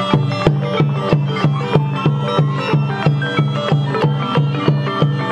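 Cambodian pinpeat ensemble playing: a busy melody of pitched percussion and a reedy wind line over a steady low tone, with drum strokes about three times a second.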